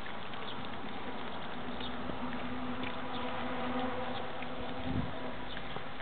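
Weimaraner puppies eating meat from a shared bowl: many small chewing and licking clicks. A steady low buzz runs through the middle few seconds, and there is a low bump about five seconds in.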